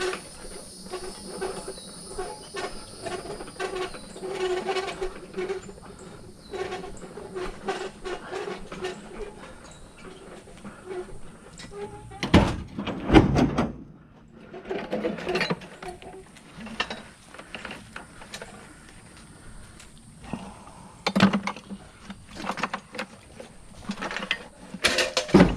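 Hand dolly rolled along with buckets of tools on it: a steady squeal and constant small metal rattles, with a loud clatter of metal a little before halfway.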